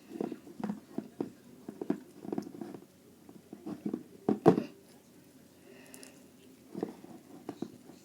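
Homemade slime being squeezed and handled, making irregular short wet squelches and clicks, with a louder one about four and a half seconds in.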